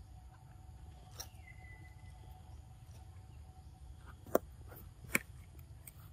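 Macaque biting into a crunchy green vegetable: two sharp crunches about a second apart, near the end, over a faint low rumble of outdoor air.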